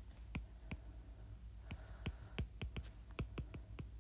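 Stylus tip tapping and clicking on an iPad's glass screen while words are hand-written, a dozen or so faint irregular taps, coming faster in the second half.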